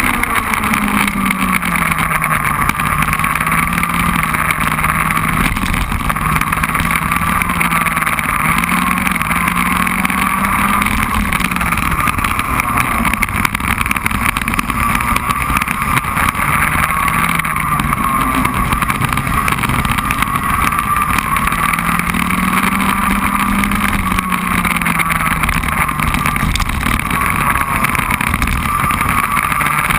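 Racing kart engine heard from on board, running hard for the whole lap section, its note dropping and rising several times as the kart brakes into corners and accelerates out of them.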